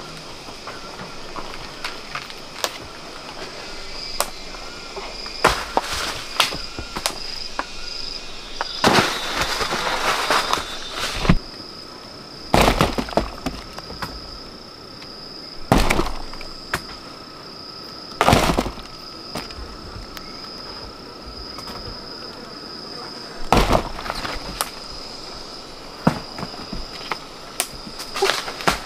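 Sharp knocks and cracks a few seconds apart, with a longer rustling crackle about nine seconds in, over a steady high insect trill.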